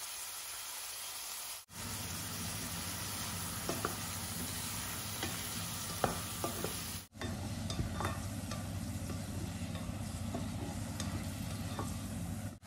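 Beef cubes sizzling steadily as they fry in hot oil in a pot, with a wooden spatula now and then clicking and scraping against the pot as the meat is stirred.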